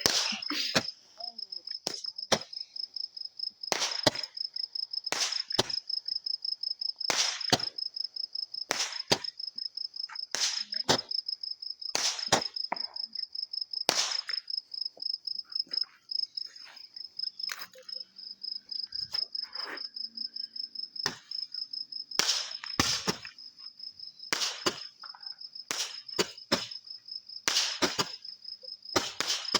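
Crickets chirping in a steady, rapid high trill, with sharp firework bangs and pops going off roughly once a second throughout.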